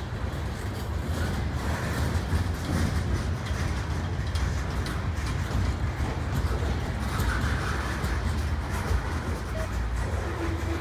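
Freight train cars (wrapped-lumber flatcars, boxcars and covered hoppers) rolling past close by: a steady, deep rumble of steel wheels on rail.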